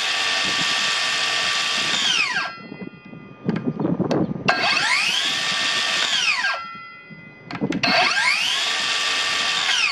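Kobalt XTR 24V brushless 7-1/4-inch cordless circular saw run free with no cut, its 24-tooth framing blade spinning in the air. It is triggered three times. Each time the motor whines up to speed, runs steadily for about two seconds, then winds down within about half a second as the electric brake stops the blade. The first run is already going at the start.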